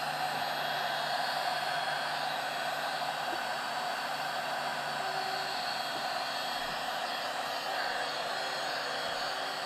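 Ryobi One+ 18V cordless heat gun running steadily, a constant rush of blown hot air with a faint low motor hum, held against thick black plastic to soften it.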